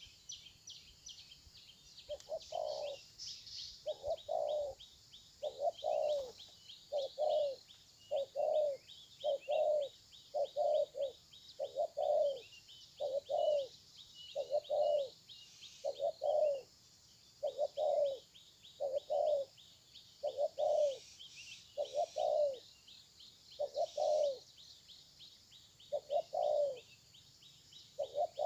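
Spotted dove cooing: short low coos repeated about once every one and a half seconds, starting about two seconds in, over a fast high-pitched chirping that runs throughout.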